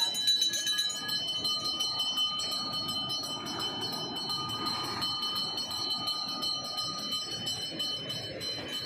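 A pooja bell rings continuously, its ringing tones held steady, over a dense rushing noise.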